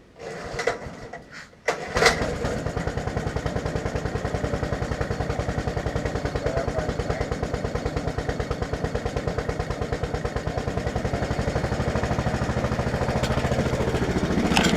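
11 hp Honda single-cylinder engine on a Case 700 garden tractor being started: it catches about two seconds in and settles into steady running with an even, fast pulse, growing a little louder near the end.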